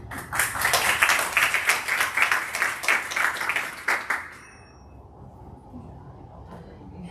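Audience applauding for about four seconds, the clapping then dying away.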